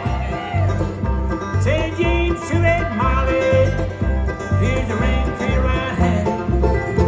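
Live bluegrass band playing an instrumental passage between sung lines: banjo and guitar picking over a steady bass beat of about two pulses a second.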